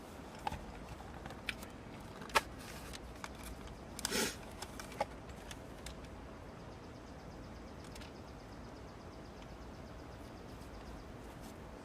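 Faint handling noises from food packaging: a few small clicks and a brief rustle about four seconds in, over a low steady hum.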